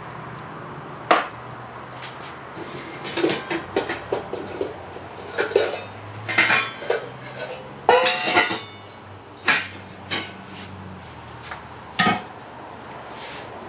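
Dog food dishes and a metal utensil clattering as supper is portioned out: scattered knocks and clinks, with a busy run of clatter in the middle and a few sharp single knocks near the end.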